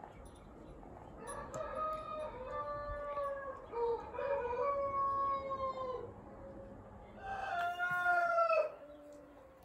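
A rooster crowing twice: a long crow of several drawn-out, slightly falling notes, then a shorter second crow near the end.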